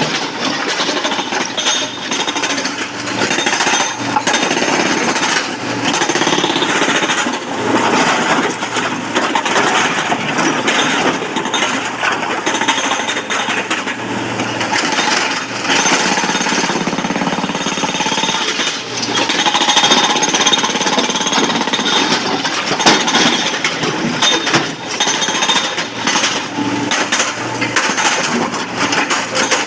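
SANY crawler excavator working blasted rock: the steel bucket scrapes and crunches through stones with a continuous rapid rattle and clatter of rock on steel. A steady low engine hum runs beneath.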